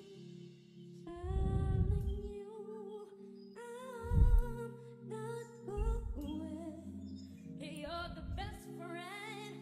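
Young boys' voices singing a slow song in close harmony, holding long notes with vibrato over sustained low accompaniment chords. A few dull low thumps, the loudest about four seconds in.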